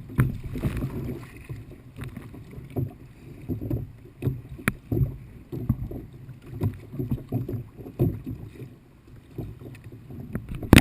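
Kayak on choppy water: water sloshing and slapping against the hull with paddle splashes, in uneven surges about every second. A sharp knock right at the end.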